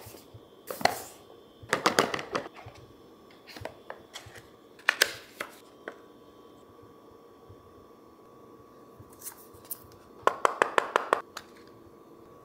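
Unboxing an iPhone 6 Plus retail box by hand: cardboard and paper sliding and rustling, in separate short handling noises. Near the end comes a quick run of about eight sharp plastic clicks as the clear tray and the EarPods case are handled.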